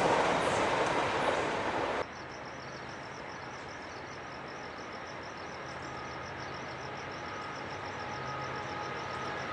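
A train passing on the rails, its noise dying away, cuts off suddenly about two seconds in. Crickets then chirp in a rapid, even pulse over the low hum of an approaching BNSF freight locomotive's diesel engines, which grows slowly louder.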